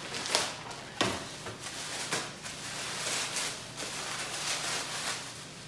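Tissue paper and a shiny gift bag rustling and crinkling as the paper is pulled out of the bag, with two sharper crackles in the first second.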